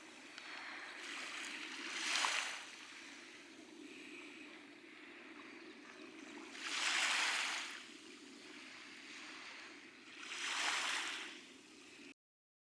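Small waves washing onto a beach: three rushes of surf swell and fade about four seconds apart over a steady background wash, and the sound cuts off suddenly near the end.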